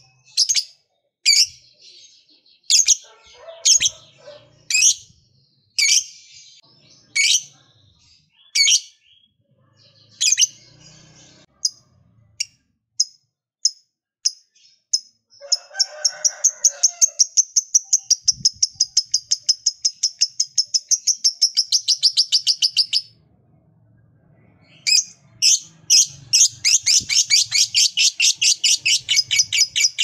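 Lovebird calling: sharp, high single chirps about once a second, then two long, very rapid chattering trills of several seconds each. This is the long trill that lovebird keepers call 'ngekek panjang'.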